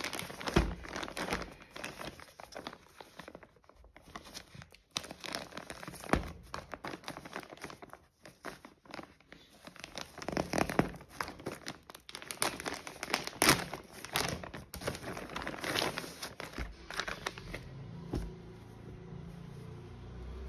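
Plastic courier mailer bag crinkling and crackling in irregular bursts as it is handled and torn open. About three seconds before the end the crackling dies down to a quieter rustle.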